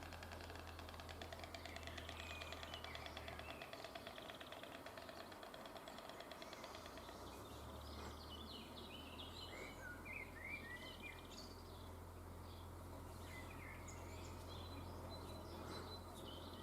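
White stork clattering its bill: a rapid, dense rattle of clicks for about the first seven seconds. After that, small birds chirp here and there.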